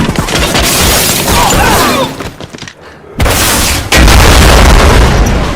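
Action-film battle sound: rapid gunfire and explosions. After a brief lull, a sudden loud blast hits about three seconds in, then a long, deep, very loud boom.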